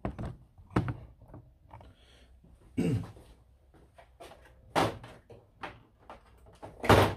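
Hard plastic modular tool tray cases knocking and clattering in a tool-chest drawer as one is worked out of it: a series of separate sharp knocks, the loudest near the end.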